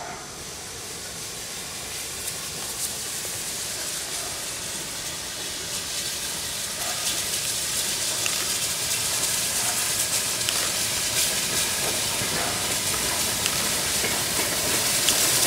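QJ-class 2-10-2 steam locomotive hissing steam as it runs toward and past the listener with a coal train, getting steadily louder as it nears.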